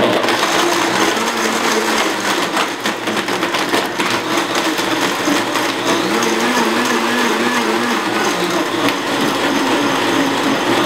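High-powered countertop blender starting abruptly and running loud, crushing ice into a smoothie on an automatic program that changes speed by itself. Its motor note begins to waver about six seconds in.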